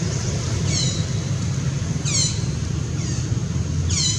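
Steady low rumble with a short, high chirping call that falls in pitch, repeated three times about a second and a half apart.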